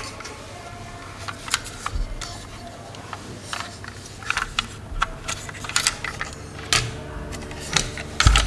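Plastic toy fire ladder truck handled in the hands: scattered light clicks and rattles of its plastic body, ladder and wheels as it is turned over.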